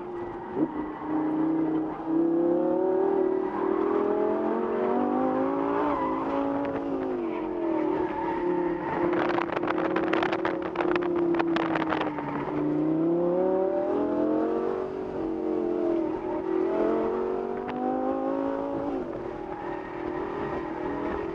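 Lamborghini Gallardo LP 560-4's V10 engine, heard from inside the open-top cabin, its pitch rising and falling again and again as the car is driven hard around cones. About nine to twelve seconds in, a few seconds of harsh, rough noise rides over the engine.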